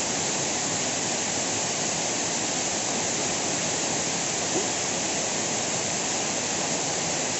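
Waterfall rushing close by: a steady, even roar of falling water with no break.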